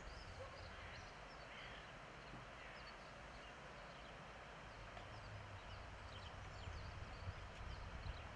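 Faint outdoor ambience: small birds chirping now and then over a low, uneven rumble.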